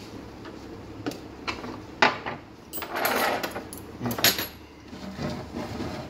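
Metal hand tools, spanners and an Allen key, clinking and knocking on a wooden workbench as they are picked up and cleared away. There are several separate knocks, the sharpest about two seconds in, and a short scraping rustle about three seconds in.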